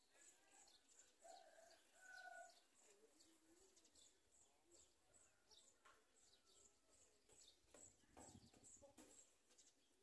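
Faint birdsong from small birds: many short, high chirps throughout, with a few lower held calls about a second and two seconds in. A brief low rumble comes near the end.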